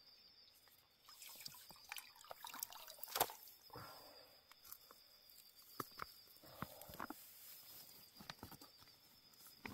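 Faint, scattered small clicks and taps, the loudest about three seconds in, over a steady high-pitched hum.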